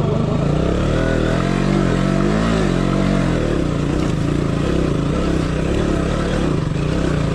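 Motorcycle engine revving, its pitch climbing and then falling over the first few seconds, then running steadily.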